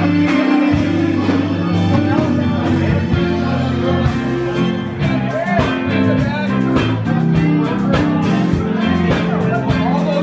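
Blues band playing: guitar over a steady drum beat, with singing.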